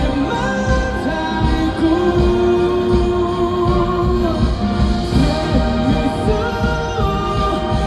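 Live pop ballad played by a band, with long sustained sung notes over a steady beat.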